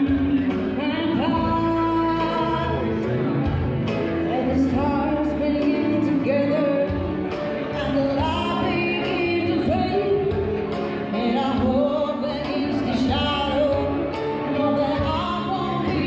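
Live music: a singer performing with grand piano accompaniment, the voice carrying a slow, gliding melody throughout.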